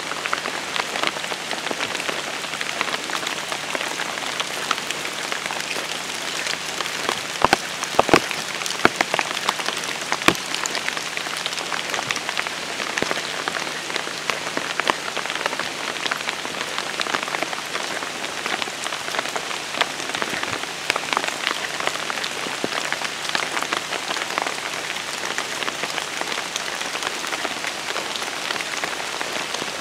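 Steady rain falling, a dense hiss of many small drops, with a few sharper drop taps about a quarter to a third of the way in.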